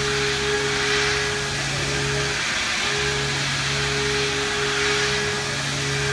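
Mikron MILL E 700 U milling machine dynamic-roughing hardened tool steel with a 10 mm carbide end mill: a steady hum over a wide hiss. The hum breaks off for about half a second roughly two and a half seconds in, then resumes.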